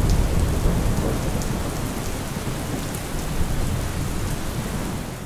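Heavy rain pouring down onto a driveway, with scattered drop ticks. A low rumble of thunder is loudest at the start and fades over the first few seconds.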